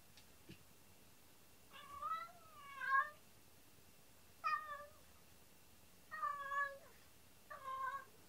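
A domestic cat meowing five times, drawn-out calls a second or so apart: lonely calling while left home alone.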